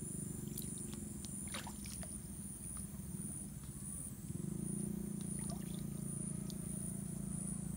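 A steady low motor drone, a little louder from about halfway through, under a steady high whine. Faint splashes come from bare feet wading in a shallow muddy pool.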